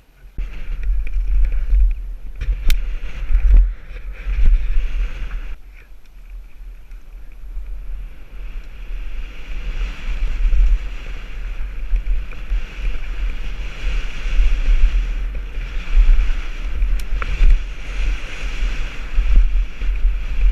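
Wind buffeting the microphone of a camera carried on a mountain bike ride, along with rolling tyre and trail noise. It starts suddenly, eases for a couple of seconds about a third of the way in, then builds again, with a couple of sharp knocks.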